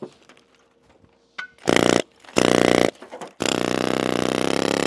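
Pneumatic air hammer chattering against a large rock in bursts: a short burst, a half-second burst, then a longer burst of about a second and a half near the end.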